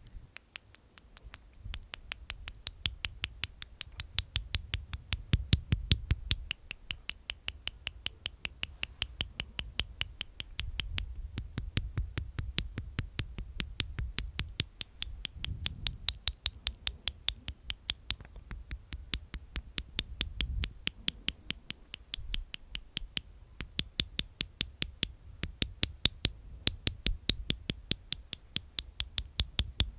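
ASMR mouth sounds: a fast, even run of wet clicks made inside the mouth with the tongue and teeth, several a second, starting about a second in.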